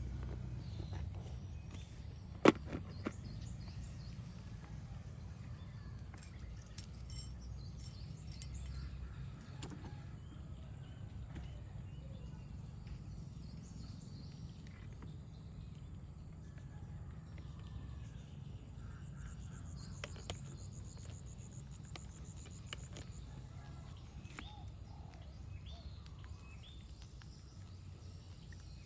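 Outdoor background: a low steady rumble with a thin steady high-pitched tone over it and scattered bird chirps. A single sharp click about two and a half seconds in.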